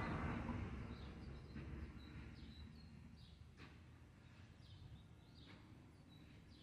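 Faint outdoor background with a bird chirping over and over in short, falling notes. A low background rumble fades away over the first couple of seconds.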